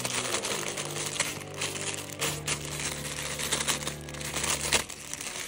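Plastic packaging crinkling and rustling as it is handled, with irregular crackles. Background music with sustained low chords runs underneath, changing chord a few times.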